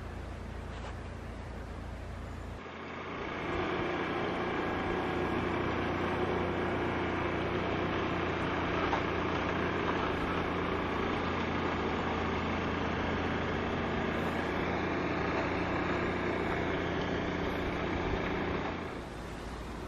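An engine running steadily at constant pitch, starting about three seconds in and cutting off abruptly near the end, over a low background hum.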